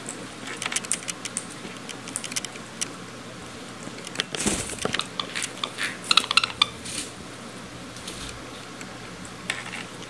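Pet cockatiels and a budgerigar making short, scattered chirps and clicks, with a brief rustling burst about four and a half seconds in and a cluster of quick chirps about six seconds in.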